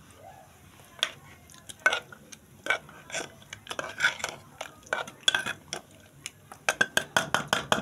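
A utensil stirring goat-leg broth in a metal pot, knocking against the pot's sides. The clinks come singly and scattered at first, then near the end quicken into a steady run of about four a second.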